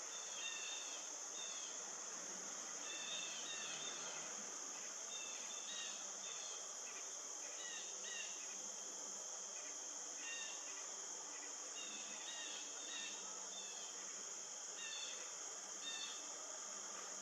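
Steady high-pitched insect trilling, with short scattered chirps over it.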